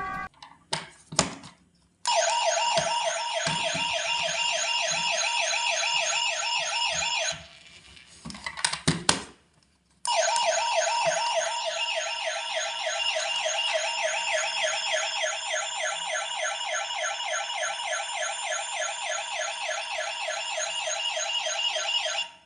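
Toy ambulance's electronic siren through its small speaker: a fast warble that cycles about three times a second. It sounds about two seconds in and stops about five seconds later. After a few clicks of handling it starts again about ten seconds in and runs on.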